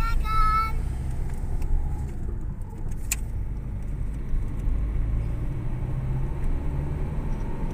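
Car engine and road noise heard from inside the cabin, a steady low rumble. There is a brief high tone in the first second and a sharp click about three seconds in.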